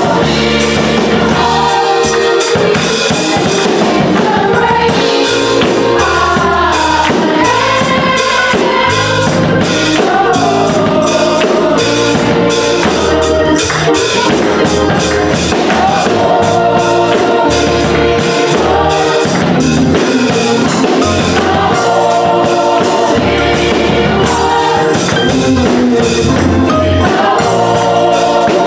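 Gospel choir singing with a live band, drums keeping the beat.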